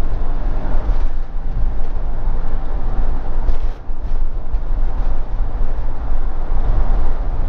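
Steady engine and road-noise rumble inside a moving motorhome's cab, heavy in the low end, with a brief dip in level near the middle.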